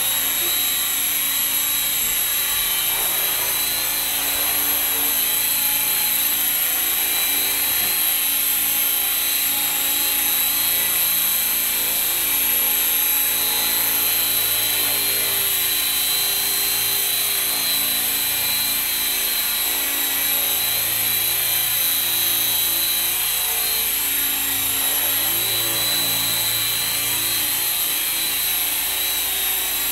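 Esky Belt CP electric model helicopter running steadily as it lifts off and hovers: a continuous high whine from the motor and gears over the hum of the spinning rotor.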